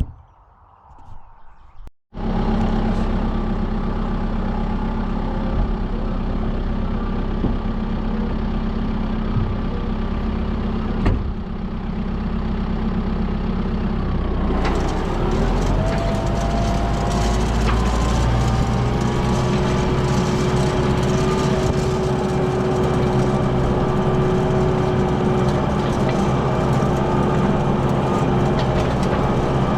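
Tractor engine running steadily while raking hay, starting abruptly about two seconds in. About halfway through its note changes, with a slight rise in pitch.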